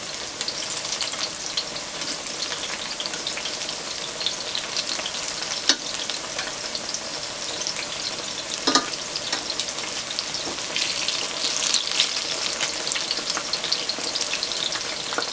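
Plantain slices frying in hot oil in a frying pan, a steady crackling sizzle that grows busier about two-thirds of the way through, with a couple of sharp knocks.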